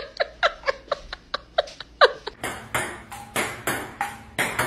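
Table tennis ball struck and bouncing: a quick, even run of light pocks, about four a second. About two and a half seconds in they give way to louder, slower hits, about three a second, as of a rally on a table.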